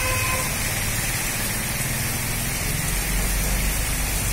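Heavy rain falling steadily, a constant hiss, with a low rumble of road traffic underneath.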